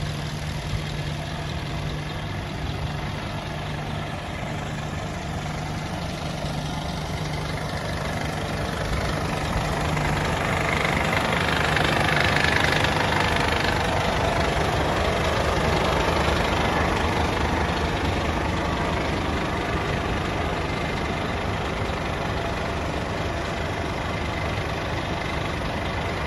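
Scania P320 truck's five-cylinder diesel engine idling steadily, growing louder about ten seconds in and easing off again after a few seconds.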